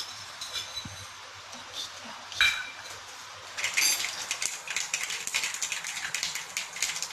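Black mustard seeds crackling and popping in hot oil in a kadhai: a rapid, continuous run of sharp pops that sets in about three and a half seconds in, the seeds spluttering as they would when oil is hot enough for tempering. Before that come a few isolated clinks, the loudest about two and a half seconds in.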